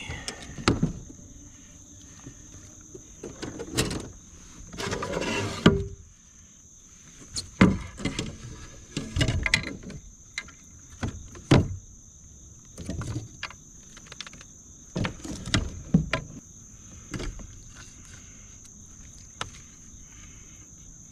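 Irregular knocks, bumps and scrapes against a kayak as a freshly caught bass is handled and measured, with a noisier scraping stretch about five seconds in. A steady high insect buzz runs underneath.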